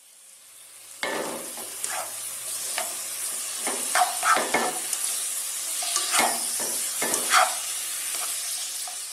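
Long beans and chopped garlic sizzling in butter in a nonstick wok, with a slotted spatula scraping and knocking against the pan as they are stir-fried. The sizzle swells sharply about a second in.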